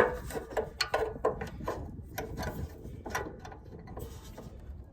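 Channel-lock pliers working a mower-deck pin out of a riding lawnmower's deck linkage: a run of irregular metal clicks and knocks.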